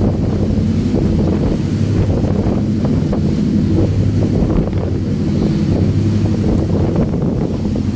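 Wind buffeting the microphone and the rush of churning wake water from a motorboat under way, over the steady low drone of its engine.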